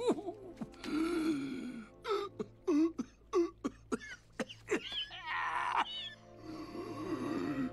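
An animated frog king's drawn-out comic death throes, voiced by an actor: a string of hacking coughs, gasps and strained vocal croaks, with a longer rasping, gurgling stretch about five seconds in.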